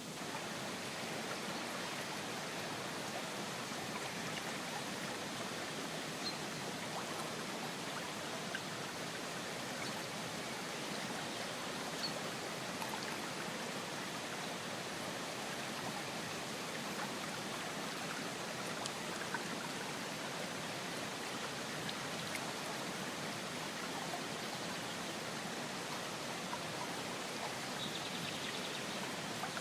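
Steady rushing of running water, with a few faint, brief high tones now and then.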